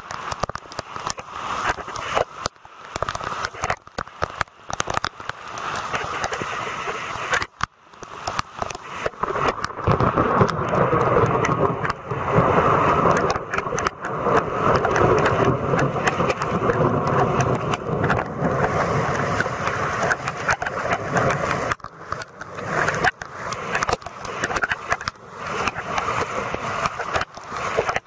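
Fast-flowing floodwater rushing, with heavy rain and frequent crackles and knocks on the phone's microphone; the rushing gets louder and fuller from about ten seconds in.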